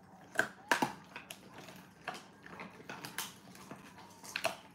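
Dogs gnawing on hard chews: irregular crunches and clicks of teeth on the chews, with the sharpest cracks just under a second in.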